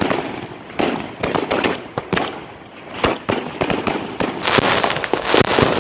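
Fireworks going off: a string of sharp bangs and pops in quick clusters, thickening into dense crackling from about four seconds in.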